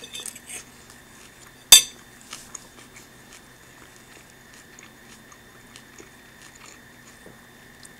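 Close-miked eating: a fork clicking against a plate and chewing of kale, tofu and rice. One sharp click, the loudest sound, comes about two seconds in; after it only faint chewing ticks over a steady faint hum.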